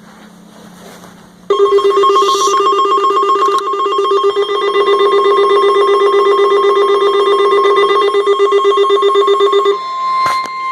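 Emergency alert tones from a weather-alert receiver. A loud, rapidly pulsing two-tone alert signal starts about a second and a half in. Near the end it gives way to a single steady tone, the warning alarm that comes before a National Weather Service warning message.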